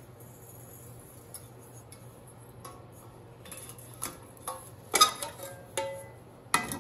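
Light metallic clinks and knocks as a welded steel frame, a bent aluminum tray and steel drawer slides are handled and set down on a workbench, the loudest about five seconds in and again near the end.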